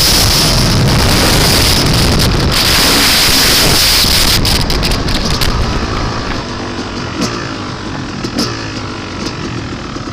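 Dirt bike engine running under heavy wind noise on the camera's microphone. About halfway through, the wind eases and the engine's pitch is heard rising and falling, with a few light clicks.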